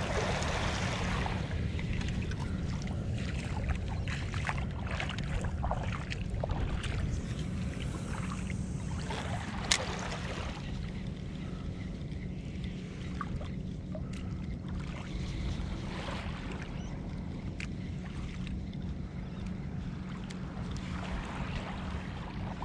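Spinning reel being cranked steadily on a jig retrieve, under a steady low rumble of wind on the microphone, with scattered light clicks and one sharp click about ten seconds in.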